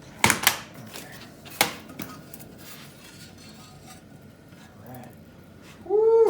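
Metal tools and engine hardware clinking: three sharp clinks in the first two seconds, then lighter ticks. Near the end comes a short wordless vocal sound.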